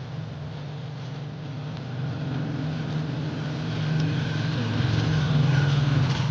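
A motor vehicle's engine running with a steady low hum that grows louder over the last few seconds.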